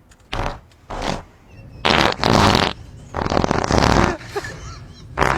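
Fart sounds: four in a row, two short ones in the first second or so, then two longer, louder ones.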